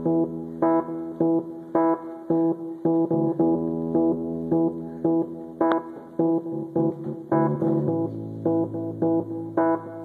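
Instrumental music: a repeating pattern of sharply struck notes, about two a second, over held bass notes that change about eight seconds in.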